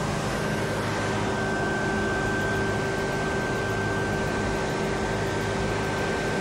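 Steady mechanical drone with a faint high whine held at one pitch, unchanging throughout.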